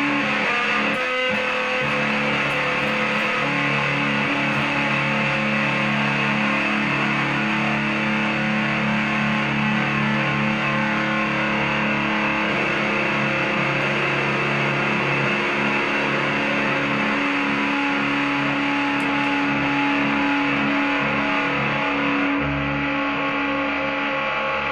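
Fender Squier Stratocaster, rewired with a single humbucker, played through distortion: held chords and notes ringing, changing every few seconds.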